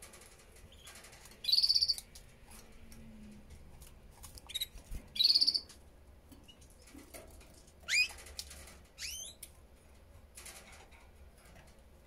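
Canaries calling at a nest with nestlings: two loud, short buzzing trills of fast repeated high notes, a few short chirps between them, then two quick rising chirps later on.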